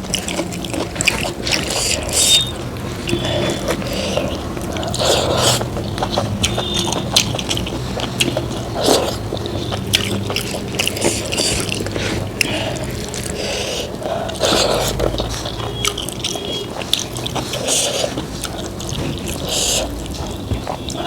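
Close-miked eating sounds: chewing and biting, with mouth noises and irregular clicks.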